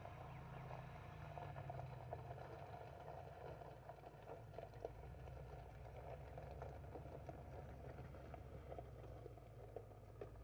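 Mercedes-Benz G-Class engine running steadily at low speed, faint, with a light scattered crackle of tyres rolling over gravel.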